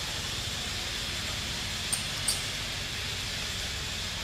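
Outdoor background: a steady hiss over a low rumble, with two short high chirps about two seconds in.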